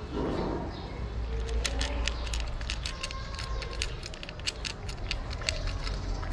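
Tabby cat crunching dry kibble: quick, irregular sharp crunches, thickest from about a second and a half in, over a steady low rumble.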